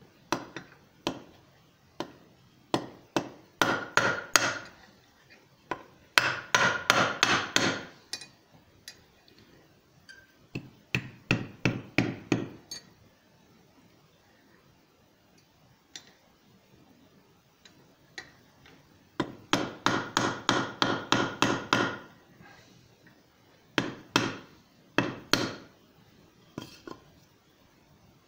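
A wooden stick beating a small copper snake against a steel anvil horn, in quick runs of blows about five a second, with pauses between the runs.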